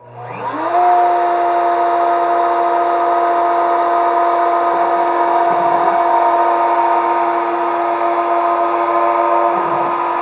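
CNC router's spindle motor switching on and spinning up within about a second, then running steadily at full speed with a high whine.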